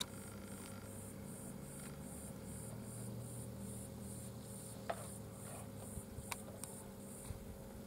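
Quiet outdoor ambience: a faint steady low hum under a faint high pulsing that repeats about twice a second, with a few sharp clicks about five and six seconds in.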